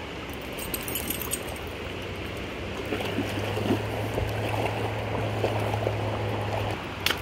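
Stream water running steadily. A low steady hum joins about two seconds in and stops shortly before the end.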